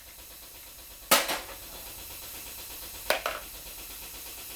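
Two sharp metallic clanks of hand tools or engine parts being handled, about two seconds apart, the first one the louder.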